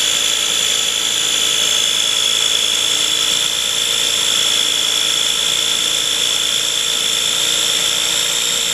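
KitchenAid food processor's electric motor running steadily with a high whine, its blade churning cream that has whipped up but not yet broken into butter.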